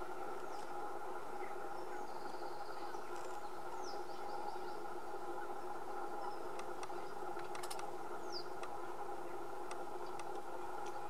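A steady, even hum with a few faint, short, falling bird chirps and several sharp clicks over it.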